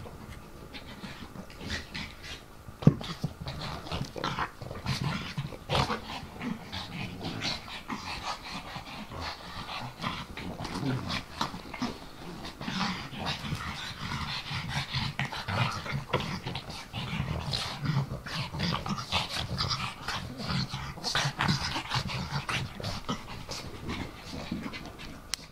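Two pugs play-fighting: continual dog play noises and heavy breathing mixed with scuffling, and one sharp knock about three seconds in.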